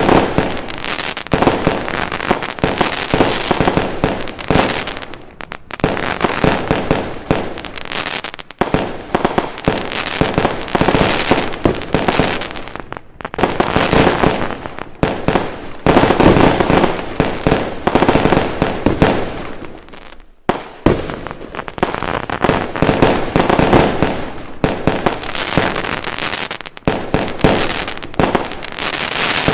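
Fireworks going off in a dense, continuous barrage of bangs and crackling, with a few brief lulls.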